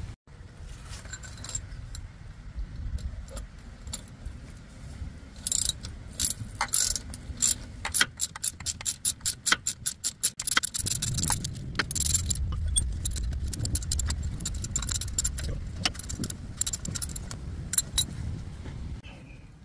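Ratchet wrench clicking in quick runs as a bolt is worked loose on the seized AC compressor's mounting. The clicks come sparse at first and then fast and dense from about five seconds in, with metal jangling and a low rumble underneath.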